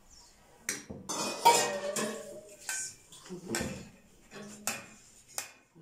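Metal kitchenware clattering and clinking as plates and baking tins are handled and set down on a table: half a dozen separate knocks, the loudest about a second and a half in.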